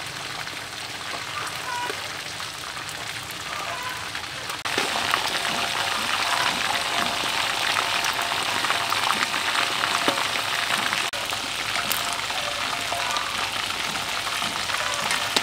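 Chicken drumsticks frying in hot oil in a wok, a steady sizzle that gets louder about five seconds in.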